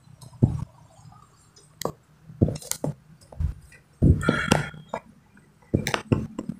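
Scattered light clicks and clinks, with a short cluster of them about two-thirds of the way through: multimeter test probes and their leads being handled against the TV's metal chassis and mainboard.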